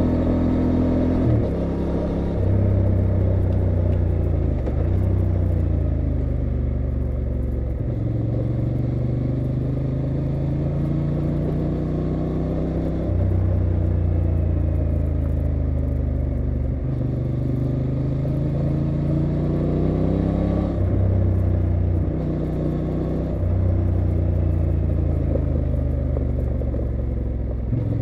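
A 2023 Honda Transalp XL750's 755 cc parallel-twin engine under way on the move. Its pitch climbs and falls with the throttle and breaks sharply several times at gear changes as the bike slows from fast riding.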